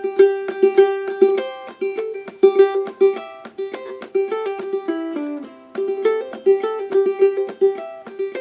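Solo ukulele played clawhammer style: quick, sharply struck melody notes over a recurring high drone note, the melody dipping lower about five seconds in.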